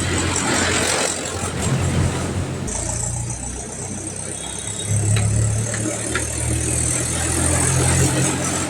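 A steady engine sound like a vehicle idling, with its low note shifting abruptly about three seconds in and again around five seconds.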